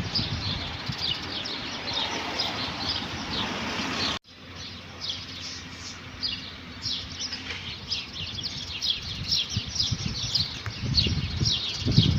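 A chorus of many small birds chirping in quick, overlapping calls. The sound drops out abruptly about four seconds in, as at a cut, then the chirping resumes. Low fluttering thumps come near the start and again toward the end.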